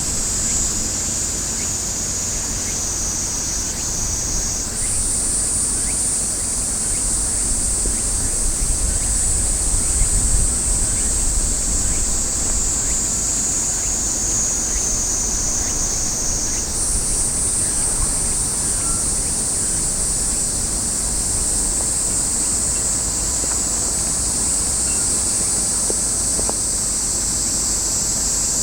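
Wind buffeting the microphone outdoors, with a steady high buzz that steps up in pitch twice and sinks slowly in between.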